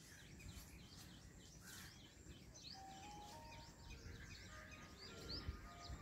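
Faint, rapid chirping of small birds over a low rumble. A faint melody of held tones comes in about halfway through.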